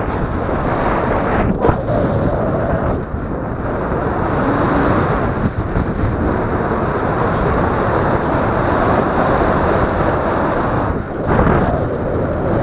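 Wind rushing over the microphone in flight under a tandem paraglider: a loud, steady rush of airflow noise that briefly drops away twice.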